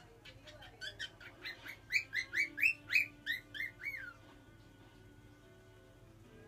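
Cockatiel whistling a quick run of short rising chirps, about three or four a second, loudest in the middle, ending on a falling note about four seconds in: a young bird practising its whistle.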